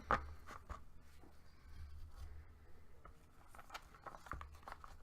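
Faint scattered clicks, taps and rustles of boxes and cards being handled and moved about, over a low steady room hum.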